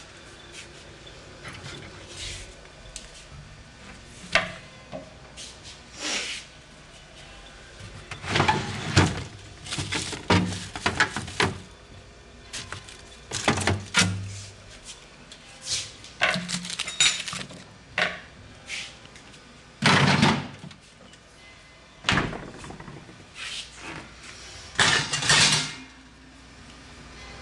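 Kitchen handling noises: irregular knocks, thunks and clatters as food is taken from a refrigerator and a pot with a glass lid is handled, the loudest knocks coming about eight to eleven seconds in and again about twenty and twenty-five seconds in.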